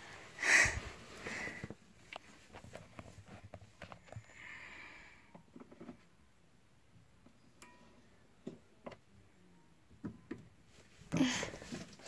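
Light handling sounds: scattered small clicks and taps as a plastic toy figure and soft slime are pressed and moved about on a dollhouse floor. A short sniff comes just after the start, and a longer breathy hiss about four seconds in.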